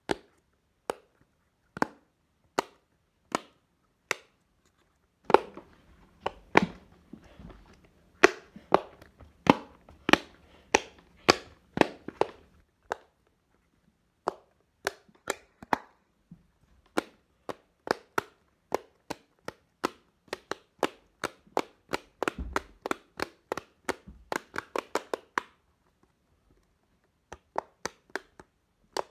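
Silicone pop-it fidget toy being popped by hand: a long series of sharp pops, now single, now in quick runs, with a couple of brief pauses.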